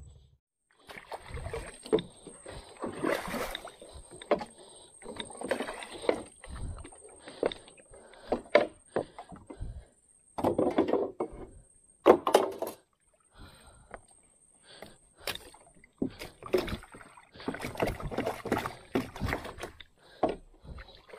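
Irregular knocks, bumps and scrapes on wooden canoe hulls as they are handled and stepped in, with water sloshing around them.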